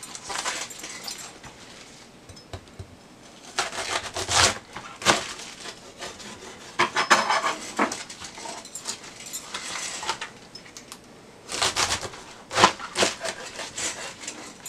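Kitchen knife cutting through a raw green cabbage onto a plastic cutting board: crisp crunching strokes in several bouts, with quieter gaps of handling between them.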